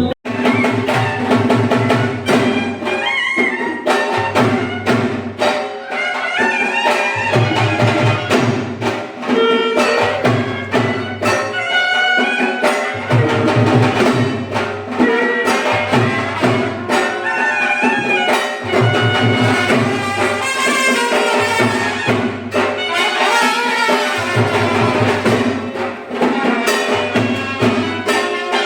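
Music with drums and a brass melody.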